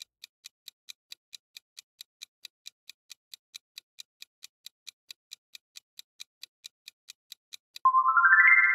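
Quiz countdown-timer sound effect: an even, quick ticking, about four and a half ticks a second. Near the end the ticking stops and a bright rising chime sounds as the answer is revealed.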